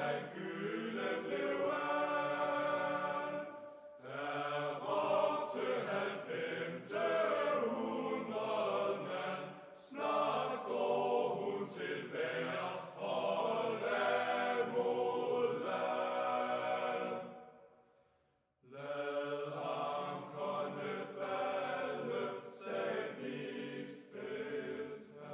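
Choral singing in slow phrases of long held notes, with short breaks between phrases and a brief gap about two-thirds of the way through.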